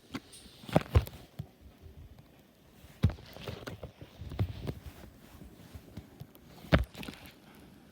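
A few scattered knocks and thumps with rustling between them, the sharpest about a second in, three seconds in and near the end.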